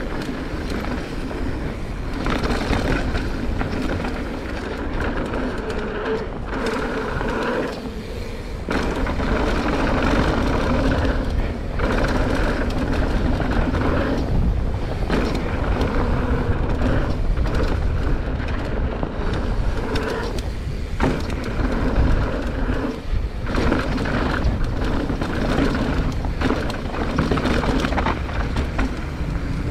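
Mountain bike ridden fast down a dirt and gravel downhill trail, heard from a GoPro on the rider: a steady, loud rush of wind and tyre rumble over loose dirt, broken by several short sudden dips.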